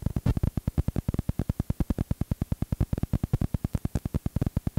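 Rhythmic buzzing pulses, about ten a second, of noise on a home videotape's audio track over a blank blue-screen gap between recordings.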